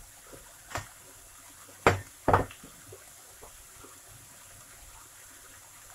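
Vegetables frying faintly in oil in a pan, with three sharp knocks from kitchen handling, the loudest two close together about two seconds in.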